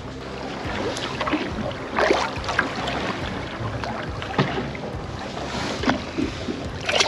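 Sea water sloshing and slapping against the side of a boat hull, with several sharper splashes, and wind on the microphone.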